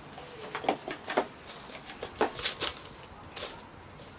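A cardboard gift box being opened and its contents handled: a scatter of short clicks, taps and rustles as the lid and packaged products are moved about.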